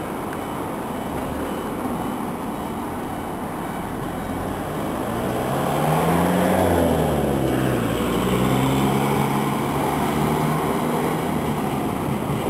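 Road traffic passing close by about halfway through, with a low-floor electric tram drawing nearer along street-running track; its steady hum grows toward the end.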